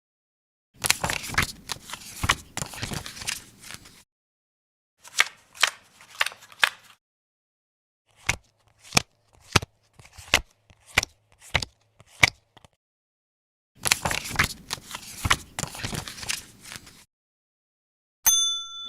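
A deck of playing cards being shuffled, a dense rustle of flicking cards, then a few card snaps, then seven single cards dealt down one after another at an even pace, then another shuffle. A bell-like ding starts at the very end.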